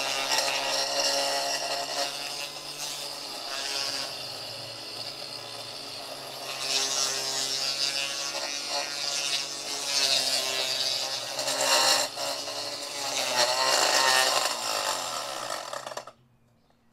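Einhell GE-LE 18/190 cordless lawn edger running, its thick steel blade cutting through turf and soil along edging stones, with scraping that swells and fades as the load changes and the blade grinds against the stones now and then. The sound cuts off abruptly near the end.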